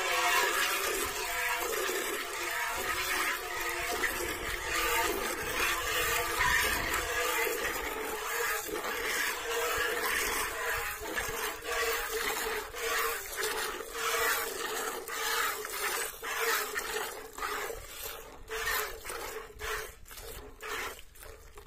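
Goat being milked by hand: streams of milk squirting into a metal pail partly full of frothy milk. A steady hiss at first, breaking into separate squirts about two a second toward the end.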